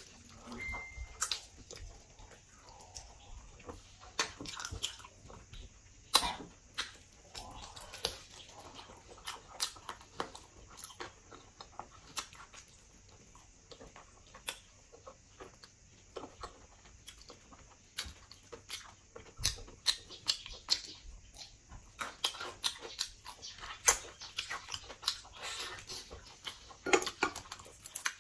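Chewing and biting on pork leg and rice, with frequent sharp wet mouth clicks.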